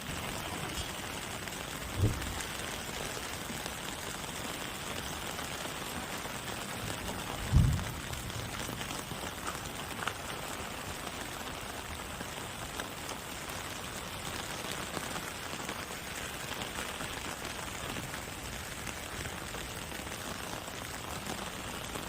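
Steady rain falling, an even hiss of drops on surfaces. Two dull thumps break through it, one about two seconds in and a louder one near eight seconds in.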